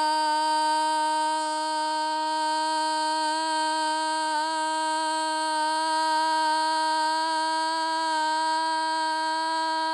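Music: one long note held at a steady pitch with many overtones, wavering slightly about four seconds in.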